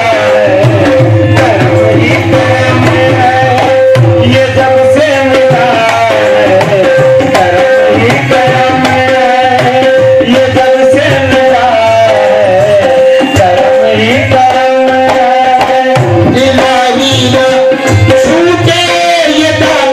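Qawwali-style devotional music: a harmonium holding a steady drone note under a wavering melody, with hand drums keeping a fast, driving rhythm and a sung vocal line.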